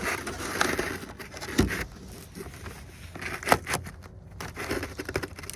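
Handling noises from a remote control bait boat being worked on by hand: irregular clicks and knocks with short scraping and rustling as its battery and parts are fitted and pressed into place.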